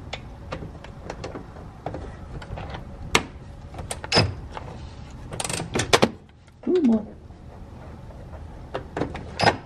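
Cordless electric ratchet with a 13 mm socket working the front sway-bar bushing bolts under a car: irregular clicks and knocks of the socket and ratchet on the bolt and subframe, a denser clatter about six seconds in, and short runs of the ratchet's motor.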